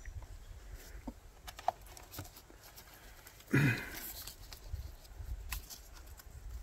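Scattered small clicks and knocks from hands working among an outboard motor's hoses and wiring harness, with one louder thump about three and a half seconds in.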